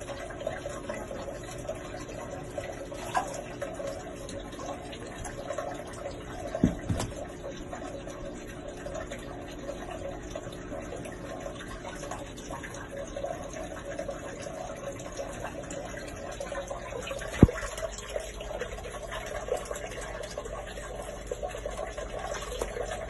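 Steady running-water noise, with a few sharp knocks, the loudest about seventeen seconds in.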